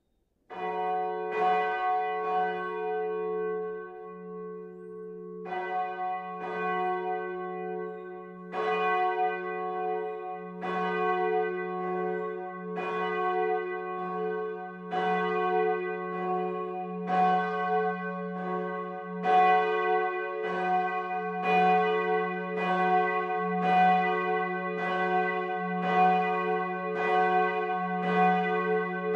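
The Gerechtigkeitsglocke (Justice Bell) of Bremen Cathedral, a large swinging church bell in its steel frame, being rung up. Its clapper strikes just after half a second in and again a second later, then after a pause of a few seconds settles into strikes about once a second. Each note rings on over a low hum.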